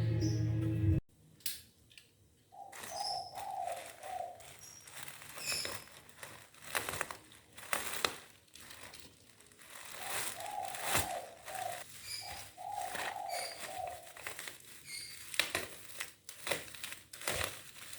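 Crinkling and clicking handling sounds, with a bird calling in runs of quick repeated notes and a few high chirps.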